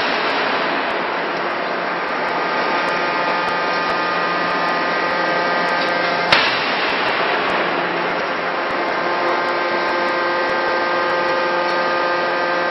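C92K-200 fully hydraulic die forging hammer landing a single sharp blow on a red-hot workpiece in the closed die about halfway through. Around it, steady machine whirring with a few held tones.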